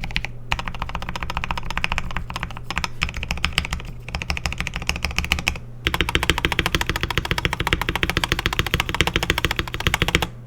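Rapid typing on a custom KBD67 Lite mechanical keyboard with a polycarbonate plate and lubed Zealios V2 67g tactile switches, a dense stream of keystroke clicks. It breaks off twice and is louder from about six seconds in.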